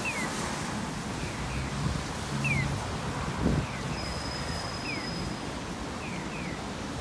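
Japanese pedestrian-crossing audible signal playing electronic chick-call chirps: a single falling "piyo" answered by a double "piyo-piyo", about once a second, over a steady hiss of street and wind noise.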